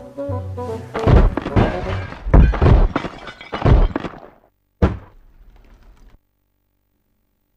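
Background music, then a run of heavy, deep thuds, about six of them between one and four seconds in, and one more sharp thud near five seconds. It falls silent about a second after that.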